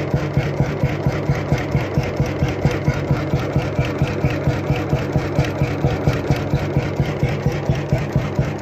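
Krimo single-cylinder 21.9-litre hot-bulb oil engine running steadily, an even, regular beat of its strokes with the mechanical clatter of its crosshead and connecting rod.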